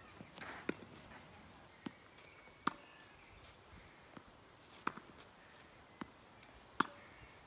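Tennis balls struck by rackets and bouncing on a clay court: a sharp pop about every two seconds, with softer knocks between.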